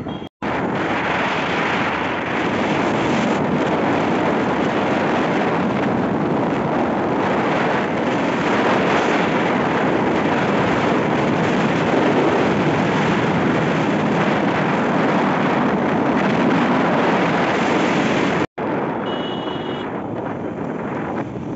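Wind rushing over the microphone of a camera riding along a busy city road, mixed with the steady road noise of the moving vehicle and the traffic around it. It drops out for an instant twice.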